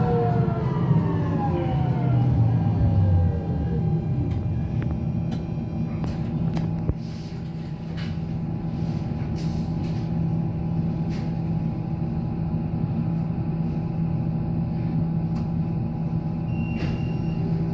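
Düwag MGT6D low-floor tram heard from inside: the drive's whine falls steadily in pitch over the first few seconds as the tram slows, then settles into a steady hum with occasional clicks and knocks. Short high beeps start near the end.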